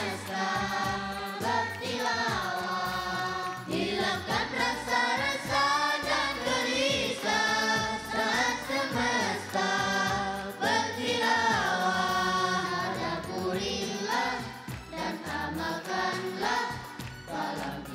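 A choir of young boys singing an Indonesian Islamic song together, holding and gliding between long sung notes.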